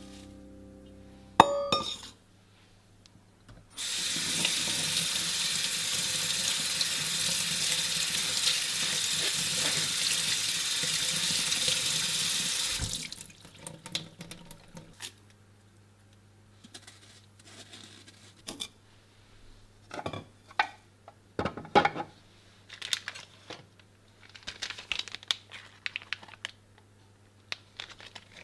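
Kitchen tap running for about nine seconds, then turned off, followed by scattered light clinks and knocks of kitchenware.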